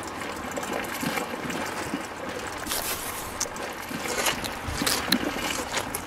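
Wet concrete slurry pouring and dribbling from a miniature mixer's chute onto sand, with scattered wet clicks through the middle of the pour.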